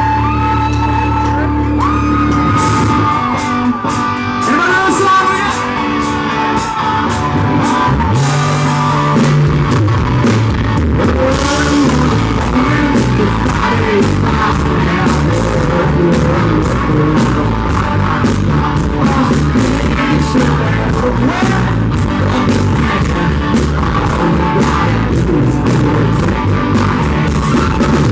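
Country-rock band playing live, with drums, guitars, keyboard and lead vocals, in a loud, poor-quality audience recording. Held keyboard-like tones open, and the drums come in about two and a half seconds in.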